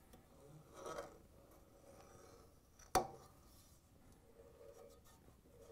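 Quiet handling of a front-load washer's rubber drive belt on its large plastic drum pulley, with one sharp click about three seconds in as the belt snaps into place on the pulley.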